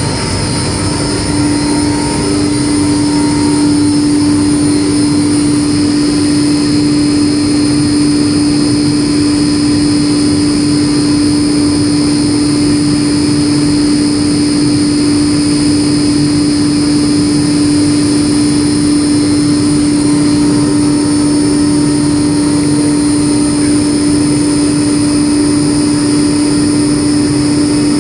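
Commercial laundry machine running with a loud, steady hum, one constant tone over even mechanical noise, growing slightly louder in the first few seconds.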